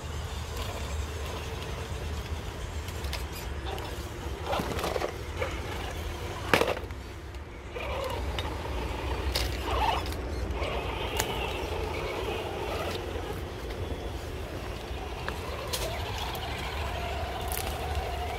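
Radio-controlled scale crawler driving over rough ground: scattered clicks and knocks over a steady low rumble.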